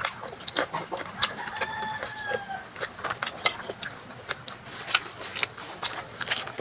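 Close-up eating sounds: chewing and lip-smacking on fried banana cue, with forks clicking. A rooster crows once in the background about a second in, one arched call about a second and a half long.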